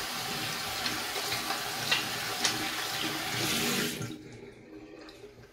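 Bathroom sink tap running with hands being washed under the stream; the water stops about four seconds in, and a few faint clicks follow.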